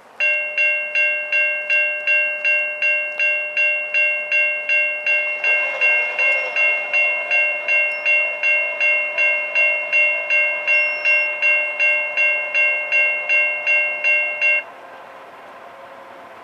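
Railroad grade-crossing bell ringing in a steady rapid rhythm of about two and a half strikes a second, then stopping abruptly near the end, as a train approaches. A fainter steady sound runs beneath it from about five seconds in.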